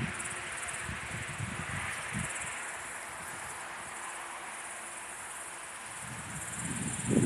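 Night insects trilling in a faint, high, pulsing band. Wind buffets the microphone with low rumbling gusts at the start, then builds and grows loud near the end.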